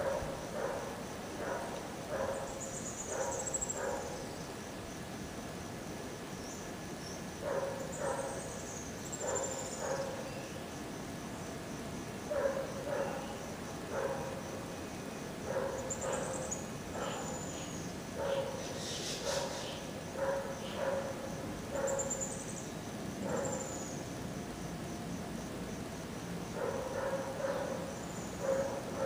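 A dog barking repeatedly in bouts of several barks, over a steady high insect trill.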